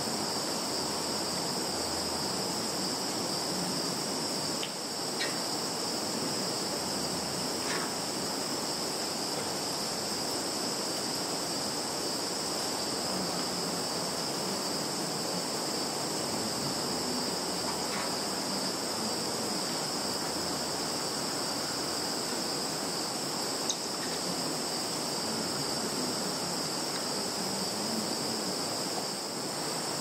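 A steady chorus of field insects, crickets and their kin, trilling continuously in two high bands of pitch, with a few faint short ticks over it.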